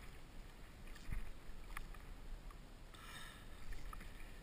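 Sea water sloshing and lapping against a plastic kayak's hull, with a low rumble, a few faint ticks and a brief louder rush of water about three seconds in.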